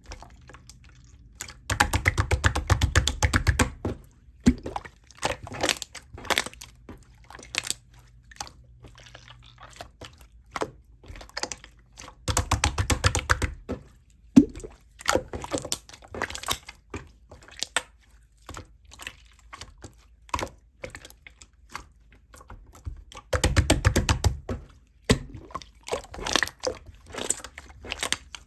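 Handmade slime being squeezed and worked, crackling and clicking throughout, with three longer bursts of rapid crackles.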